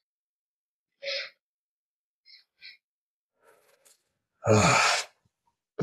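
A person's loud breathy sigh near the end, after a short breath about a second in and two faint clicks.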